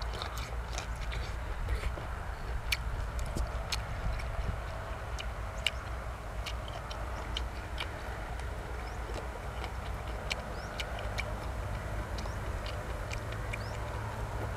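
A person chewing food close to the microphone: irregular wet clicks and smacks of the mouth, a few a second, over a steady low rumble.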